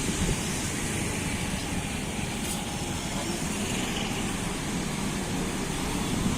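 Steady low rumble of a motor vehicle, even throughout with no distinct knocks or changes.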